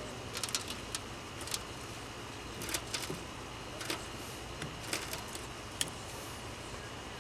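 Scattered light metallic clicks and clinks from hand tools and welding-lead hardware being handled, about a dozen spread unevenly, over a steady low hum.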